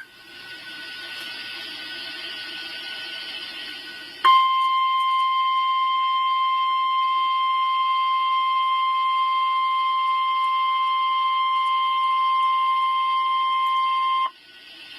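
A weather radio gives a few seconds of static hiss, then sounds the NOAA Weather Radio 1050 Hz warning alarm tone: one steady high tone held for about ten seconds that cuts off suddenly. The tone is the alert signal that comes before an emergency message, here a tornado watch.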